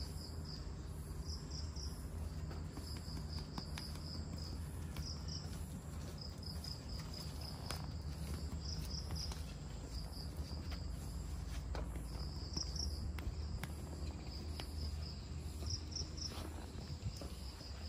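Crickets chirping: short trains of high, rapid pulses repeating every second or so, over a steady low rumble.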